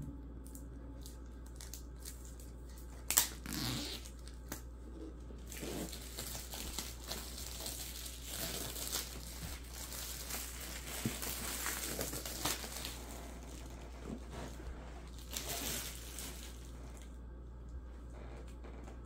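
Plastic shrink wrap being torn open and peeled off a laptop box, crinkling through most of the stretch, with louder bursts. A single sharp tap comes about three seconds in.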